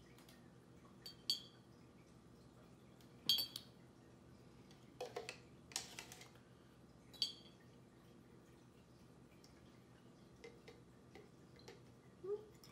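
A metal spoon clinking and scraping against a plastic cup and a glass jar: a few sharp, ringing taps a couple of seconds apart, with a brief scrape in the middle, as coloured sugar water is spooned into the jar.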